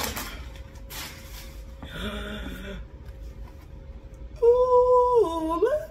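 Packing paper rustling as a box of books is unpacked, then a woman's long sung-out exclamation of delight near the end that holds a note, dips and rises again.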